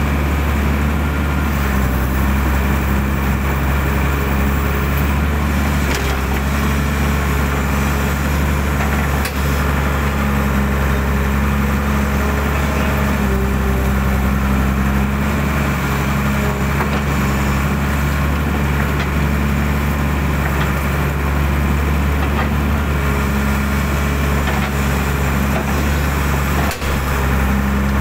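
Hydraulic excavator's diesel engine running steadily under working load, with the whine of its hydraulics changing pitch now and then as the machine digs. A brief knock comes near the end.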